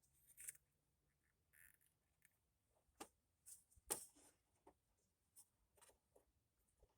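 Faint, scattered clicks and light taps of hand work on the scooter, with a sharper knock about four seconds in.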